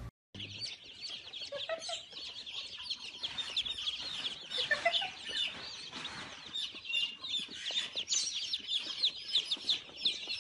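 A crowd of baby chicks peeping continuously, many short high falling cheeps overlapping one another.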